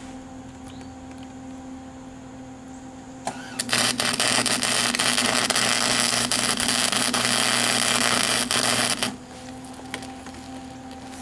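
Electric arc welding on steel, a bolt being welded into a stripped drain plug: the arc catches with a brief pop about three seconds in, then burns with a loud, even crackle for about five seconds and cuts off suddenly.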